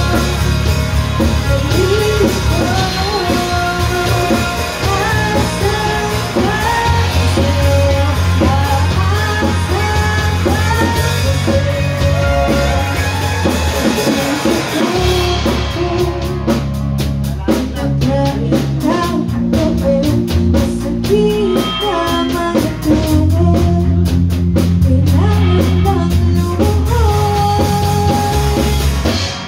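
Live rock band playing a song: sung vocals over a drum kit and electric guitar, with steady low bass notes. From about halfway through, the drum hits stand out more clearly.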